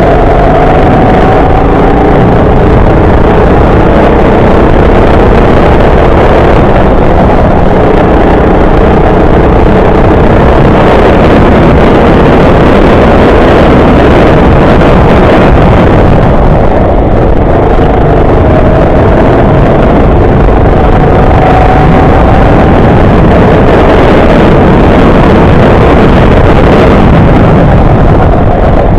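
Go-kart engine running hard and loud, its pitch rising and falling with the throttle through the corners.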